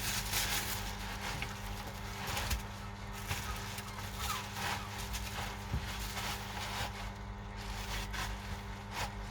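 Scattered light clicks and taps from handling phone parts and small repair tools, over a steady electrical hum.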